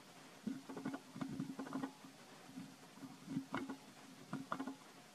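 Soft, close smacking and clicking sounds in short bursts, a busy spell in the first two seconds and a sparser one later: an infant long-tailed macaque suckling at its mother's nipple.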